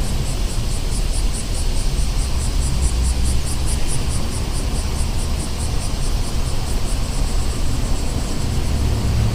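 Night city street ambience: a steady low rumble of distant traffic, with a fast, high-pitched pulsing of about five beats a second over it.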